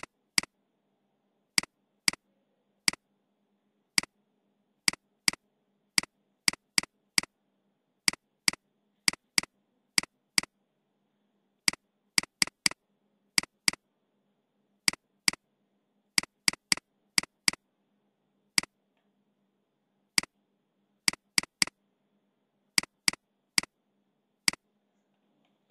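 Computer mouse button clicks: about forty single sharp clicks at irregular intervals, some coming two or three in quick succession, as regions of a CAD drawing are clicked to fill them with hatching.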